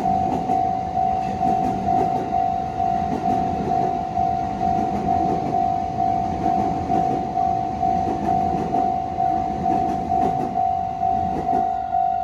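Japanese level-crossing warning bell ringing steadily, about two strikes a second, each strike fading before the next. Under it a JR Saikyo Line train passes with rumbling, clattering wheels that die away near the end.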